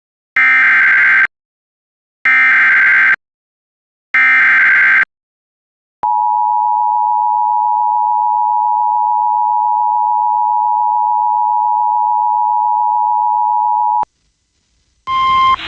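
Emergency Alert System alert tones: three one-second bursts of SAME digital header data about two seconds apart, then the two-tone EAS attention signal, held steady for about eight seconds before it cuts off.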